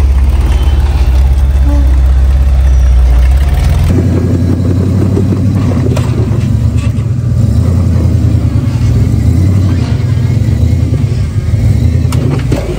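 Rock-crawler buggy engine idling steadily, then cut to a buggy's engine running under load with rises and falls in revs as it climbs a near-vertical rock ledge.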